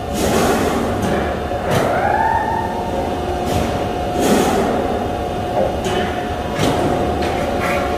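Metal fabrication shop machinery running: a steady hum with a whine that rises and then holds about two seconds in, and scattered metallic clanks.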